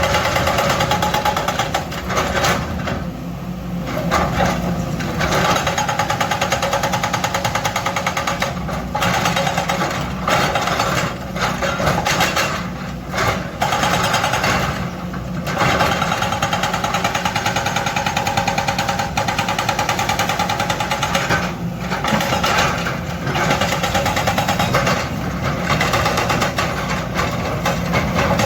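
Hydraulic breaker on a Kobelco excavator hammering rock in rapid strokes, breaking off briefly a few times, with the excavator's engine running underneath.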